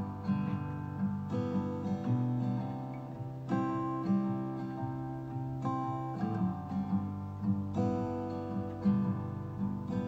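Background music: an acoustic guitar picking and strumming chords, the chord changing about every two seconds.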